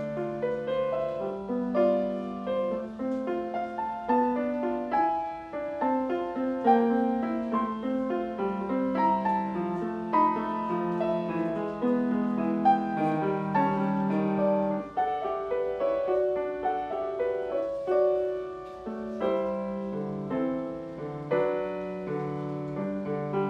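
Solo piano playing a gentle classical piece: a flowing melody over a lower accompaniment, notes struck continuously with small swells in loudness.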